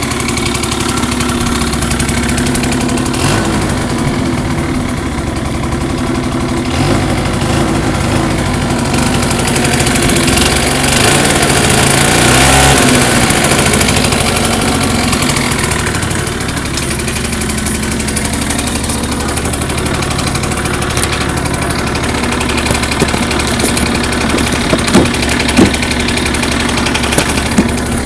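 Benelli Quattronove X (49X) 50cc two-stroke scooter engine idling through an aftermarket expansion-pipe exhaust. Its sound swells with a light rev about ten to fourteen seconds in, then settles back to idle, and a few sharp clicks come near the end.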